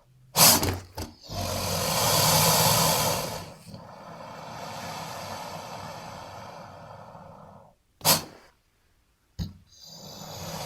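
Dimetrodon creature sound effect: two short sharp snorts, then a long loud breathy hiss that fades into a quieter, drawn-out breath. About eight seconds in, another sharp snort, a moment of silence and a final snort, before the hissing breath builds again near the end.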